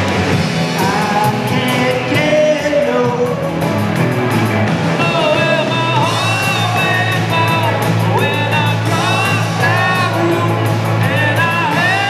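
Live rock band playing with a singer, over a steady drum beat and bass.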